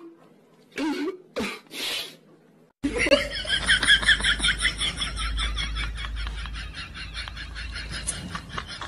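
A few short sobbing breaths, then about three seconds in a burst of high-pitched laughter starts suddenly and carries on in quick, even pulses of about four to five a second, over a low hum.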